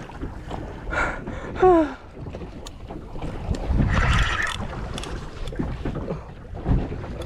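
Wind buffeting the microphone and water moving around a small boat in a running tide, with a few short louder bursts, among them a brief falling pitched sound about two seconds in.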